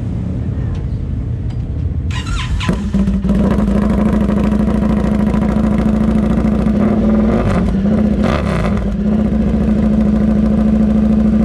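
Indian FTR 1200's V-twin engine running through a Toce aftermarket exhaust. It idles, then about two and a half seconds in it is revved up and held at a higher, steady engine speed.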